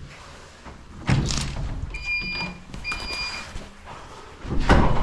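Two short, steady electronic beeps, the second about a second after the first, between noisy bumps; the louder bump comes near the end.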